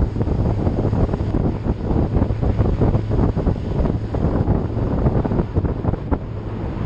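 Wind buffeting the microphone over a steady low drone of a vehicle on the move.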